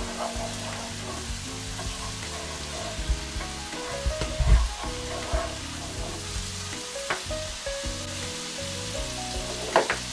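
Chopped garlic and onions sizzling in hot bacon fat in a pot, with a spoon knocking and scraping against the pot a few times as they are stirred.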